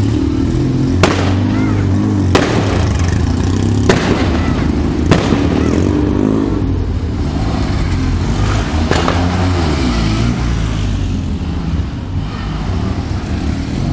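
Fiat 126p cars driving slowly past one after another, their air-cooled two-cylinder engines running with a wavering low hum. About five sharp bangs cut through in the first two-thirds.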